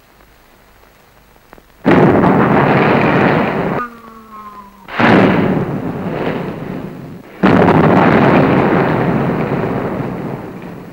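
Artillery shell explosions: three loud blasts, about two, five and seven and a half seconds in, each dying away over a second or two. There is a short falling tone between the first two.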